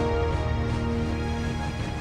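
Background music in a documentary score: sustained held chords over a heavy low drone.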